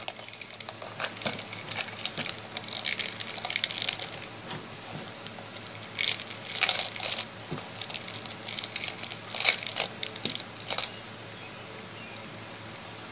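Rustling and crinkling of a sheer fabric wrap and fluffy eyelash yarn trim being handled over a small decorated jar, in irregular bursts that stop about eleven seconds in.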